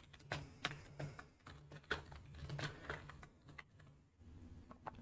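Typing on a computer keyboard: a run of faint, uneven key clicks that thins out about four seconds in.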